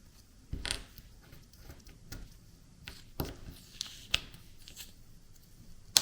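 Washi tape being pulled off and cut with a 3D-printed plastic washi cutter: short tearing and peeling sounds and a few sharp plastic clicks, the sharpest click near the end.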